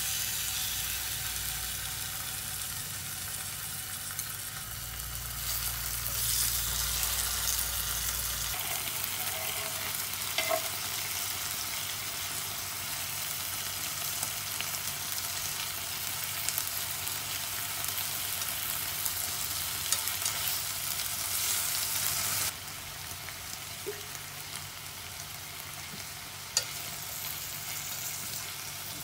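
Kimchi and diced meat sizzling as they fry in oil in a frying pan, stirred with wooden chopsticks, with a few sharp clicks of the utensil against the pan. The sizzle suddenly drops quieter about three quarters of the way through.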